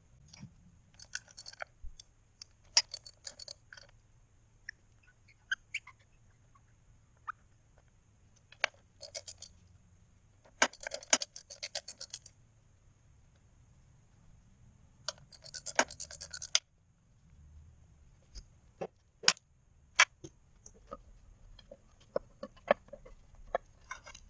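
Hand ratchet clicking in several short runs as bolts on a motorcycle engine's timing cover are loosened, with a few single sharp metal clicks and taps between.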